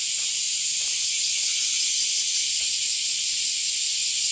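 Steady, loud high-pitched hiss that does not change.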